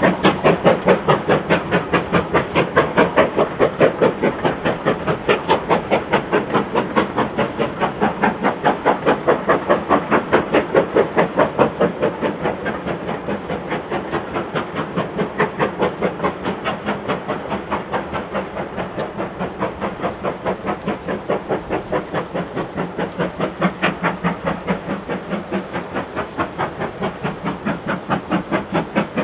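Steam locomotive working hard under steam hauling a passenger train, its exhaust beating in a fast, even chuff of about four beats a second, a little fainter after about twelve seconds.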